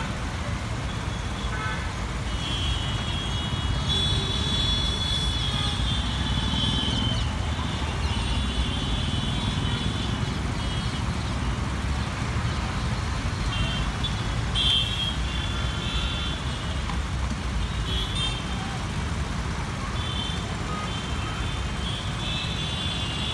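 Busy city road traffic: a steady rumble of passing cars and motorbikes, with vehicle horns honking on and off.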